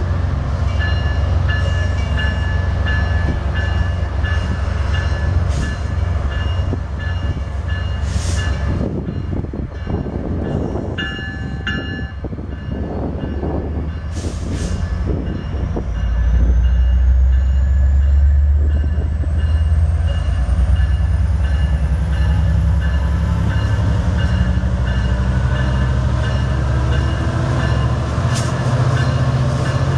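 An Amtrak EMD F59PHI diesel-electric locomotive with its passenger train approaches, its engine rumbling steadily and growing louder from about halfway through as the train comes close. A short horn sound comes a little before the middle, and a thin high whine rises slowly in pitch through the second half.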